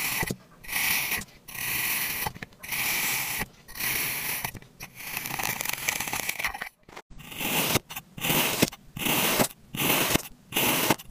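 Kinetic sand being cut and scraped with a thin blade: a run of crisp, crunching strokes with short pauses between, longer in the first half and shorter and quicker in the second.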